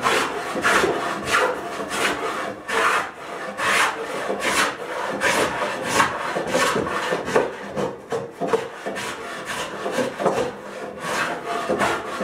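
Wooden coffin-smoother hand plane taking repeated quick strokes along a wooden board, about one and a half strokes a second, each a short shaving rasp. It is evening out a spot that stands about a sixty-fourth of an inch high.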